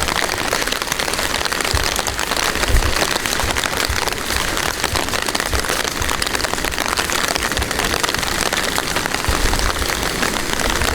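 Steady rain falling, a dense even hiss of drops, with a few brief low thumps.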